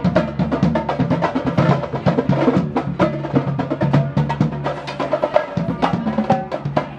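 Music with a busy, fast drum beat over a steady bass line.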